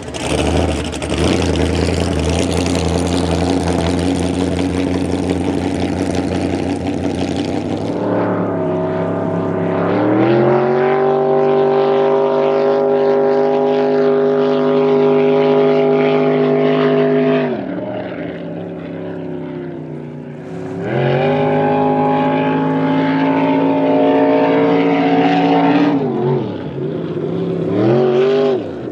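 Blown V8 of a flat-bottom hot rod boat, running through open pipes: it bursts into a loud, rough run, then pulls away with the engine pitch climbing and holding at speed. The throttle eases off and comes back on twice, the pitch sagging and rising again.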